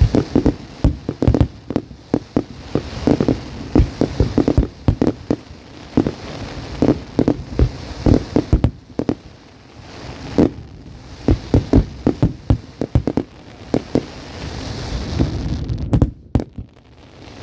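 Fireworks going off in a rapid, uneven barrage of bangs and crackles, thinning out briefly near the end.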